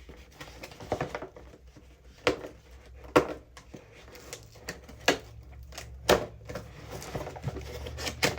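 Cardboard box and packaging being handled and opened: irregular sharp taps and clicks, about half a dozen, with light rustling between them.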